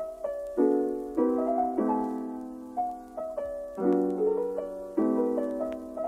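Background music: a gentle piano tune, chords struck and left to fade every second or so, with a simple melody on top.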